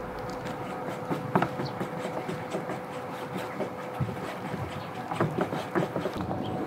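Wooden chopsticks stirring batter in a stainless steel bowl, with irregular light clicks and scrapes against the metal, over a faint steady hum.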